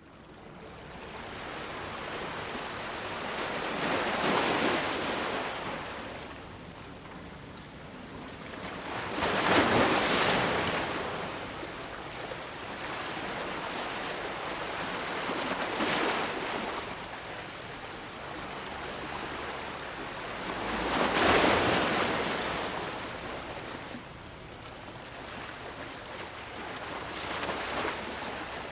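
Ocean waves breaking on the shore, one swell rising and falling about every five to six seconds over a steady wash of surf.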